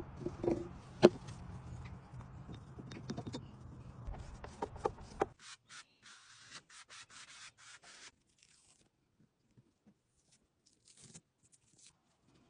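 A few sharp knocks over a low hum that cuts off about five seconds in. Then a paintbrush scrubs varnish across a painted wooden panel in brisk strokes, about four or five a second, for a couple of seconds, followed by faint scattered rubbing.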